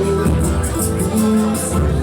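Live samba-pagode band playing an instrumental stretch between sung lines: steady percussion over bass, with plucked strings.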